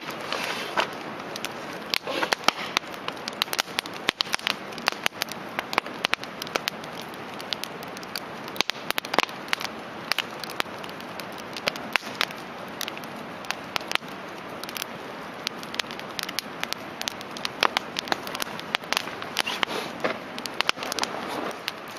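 Wood campfire crackling: frequent sharp pops and snaps over a steady hiss.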